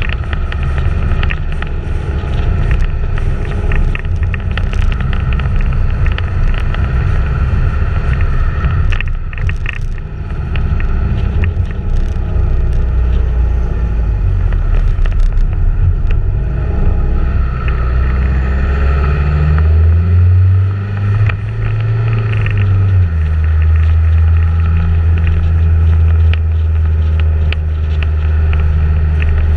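Motor vehicle engine running at road speed with wind rushing over the microphone; the engine note shifts up and back down about two-thirds through.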